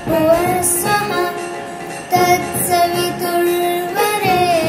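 A boy's voice singing a Hindu devotional prayer, with long held notes that slide between pitches.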